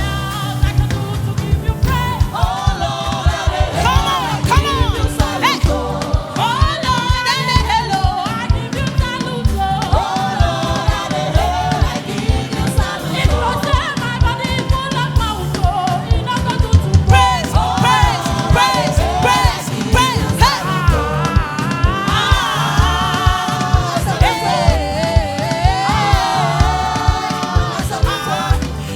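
Gospel song with singing over a band, the voices wavering with vibrato above a steady drum beat and bass.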